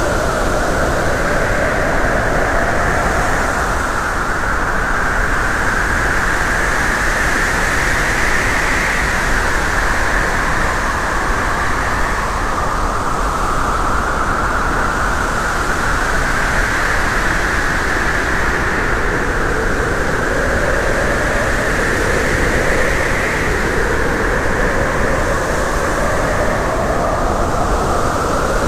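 Steady, loud rushing wind and road noise from a moving vehicle, its hiss slowly drifting up and down in pitch.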